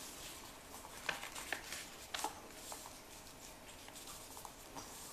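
A sheet of paper being folded by hand and its crease pressed flat: short crinkles and rustles, loudest between about one and two and a half seconds in, then fainter.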